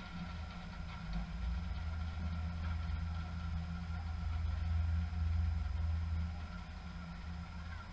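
A steady low mechanical hum like a running engine, with a faint steady high whine over it, swelling a little louder in the middle before settling back.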